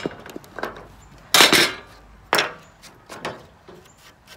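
Hand saw cutting through a thin painted wood strip at an angle, about five separate rasping strokes with the loudest about a second and a half in, followed by a few light wooden clicks near the end.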